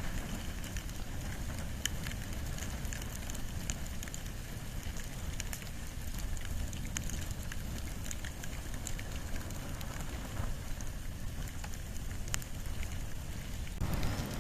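Wood and bamboo fire burning, with irregular crackles and snaps over a low, steady rumble of flame; the sound grows denser shortly before the end.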